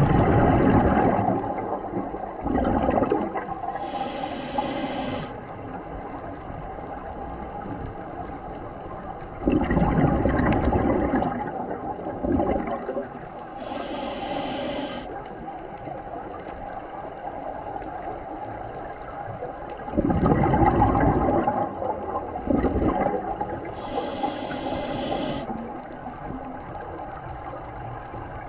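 Scuba diver breathing through a regulator underwater: three loud bursts of exhaled bubbles about ten seconds apart, each followed a few seconds later by a short high hiss of inhaling.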